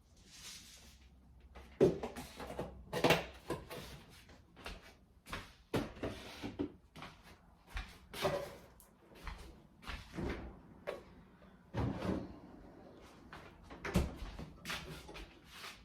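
Kitchen clatter while making breakfast oatmeal: an irregular run of knocks and clunks from cupboard doors, drawers and dishes being handled, one to three a second, with the loudest knocks about two, three, twelve and fourteen seconds in.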